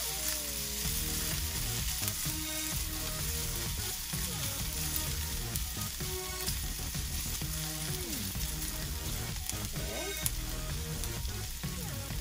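Julienned ginger and onion sizzling steadily in hot oil in a stainless steel frying pan while being stirred with tongs.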